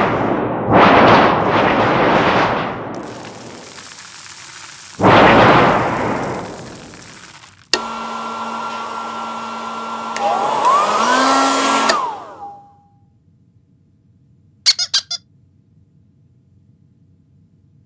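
Several loud, noisy blasts in the first six seconds, then a hand-held hair dryer switched on and running steadily for about four seconds with a low hum, its pitch bending near the end before it cuts off. A few short clicks follow.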